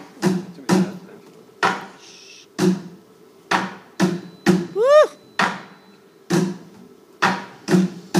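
Stage percussion routine: a rhythm of sharp, heavy knocks, about a dozen with uneven gaps between them, and a short rising whoop about five seconds in.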